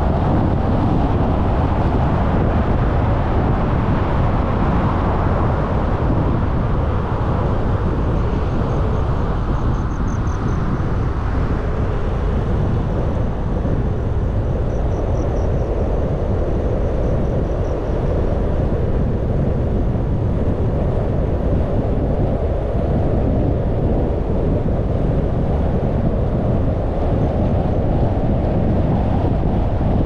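A car driving at expressway speed: steady road and wind noise with a heavy low rumble. A faint high whistle comes and goes twice near the middle.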